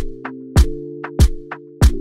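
Background music with a steady beat: a strong drum hit about every 0.6 seconds, lighter hits in between, over a held low chord.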